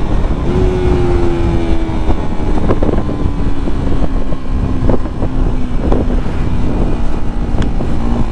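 Motorcycle engine running under way, heard from the rider's own bike with wind rumble on the microphone. Its note jumps up about half a second in, then falls slowly through the rest. A few sharp ticks cut through.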